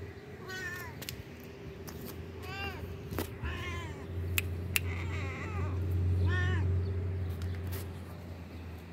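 Cats meowing: about five short meows, a second or two apart, over a steady low hum that grows louder in the middle, with a few sharp clicks.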